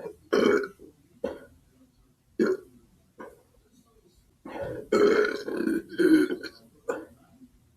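A person belching repeatedly: four short belches a second or so apart, then one longer belch lasting about two seconds, starting about four and a half seconds in, and one more short belch near the end.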